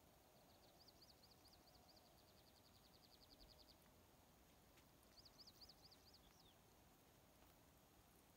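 Faint small songbird call: a fast trill of high, evenly repeated notes lasting about three seconds, then about five seconds in a shorter phrase of a few slower notes ending in a falling note.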